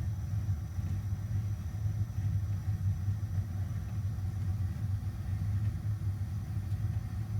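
Furnace running with a steady low hum.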